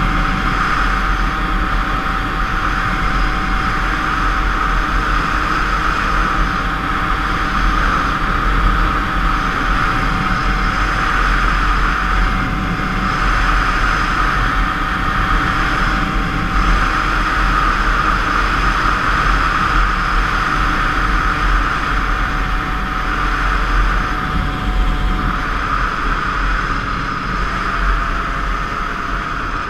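Two-stroke 50 cc motorcycle engine running steadily under way, swelling slightly a few times, with wind noise on the microphone.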